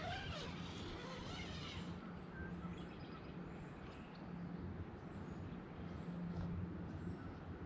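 Outdoor ambience: a steady low hum under a light rush, with faint short bird chirps scattered throughout.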